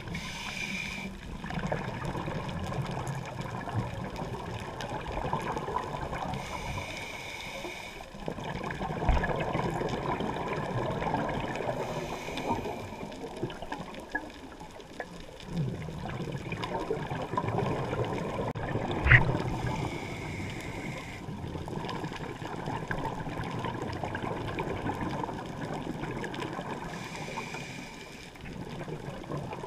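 A scuba diver breathes through a regulator, heard underwater inside a GoPro housing. A short hiss of inhalation comes five times, every six to seven seconds, with exhaled bubbles gurgling in between. A single knock comes about two-thirds of the way through.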